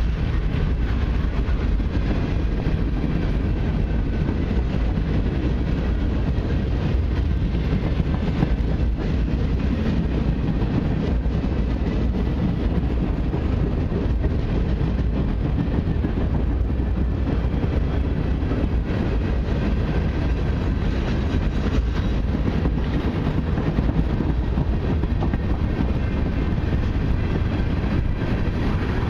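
Freight train cars rolling past close by, centerbeam flatcars and then tank cars: a steady rumble and clatter of steel wheels on the rails.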